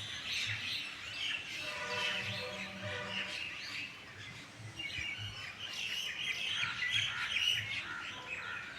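Morning chorus of several small birds chirping and trilling over one another. A lower, drawn-out call with overtones sounds for about a second and a half, starting about two seconds in.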